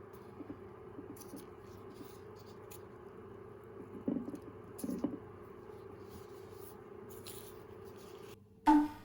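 Kitchen handling sounds: light clicks and scrapes, two soft knocks about four and five seconds in, and a sharp loud knock near the end, over a steady hum that stops just before that knock.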